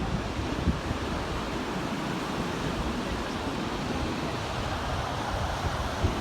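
Ocean surf washing ashore in a steady rush, with wind buffeting the microphone in low rumbles.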